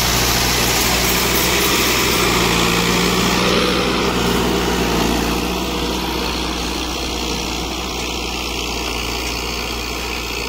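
Farm tractor's diesel engine running steadily under load as it pulls a tine cultivator through tilled soil. It grows somewhat quieter after about five seconds.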